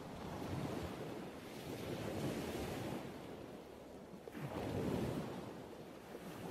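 Ocean surf, waves washing in and drawing back, swelling three times.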